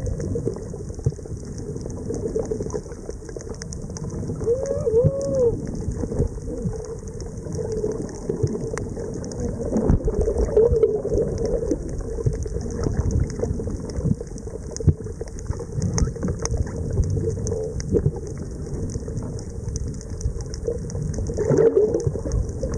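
Underwater noise picked up by a camera held below the surface over a coral reef: a steady crackling hiss over a low rumble, with scattered knocks and a few short warbling gurgles about five seconds in.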